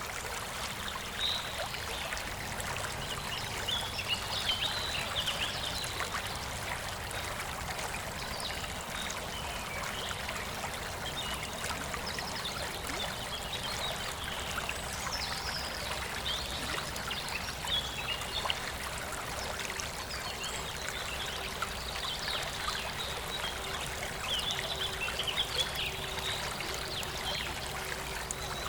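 A stream trickling steadily over stones, with small birds chirping and calling intermittently over it.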